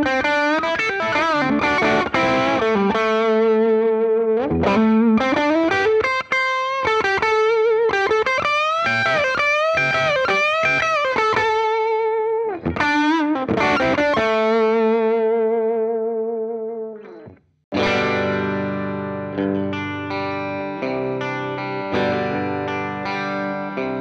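Electric guitar played through a Maxon OD-808 overdrive pedal into an amp: a mildly distorted lead line with string bends and vibrato, its last note sustaining and fading out about 17 seconds in. After a brief break, overdriven chords ring out.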